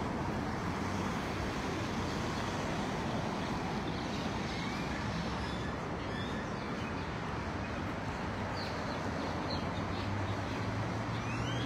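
Steady street traffic noise, an even hiss of passing vehicles, with a few faint high chirps after the middle and a low steady hum coming in near the end.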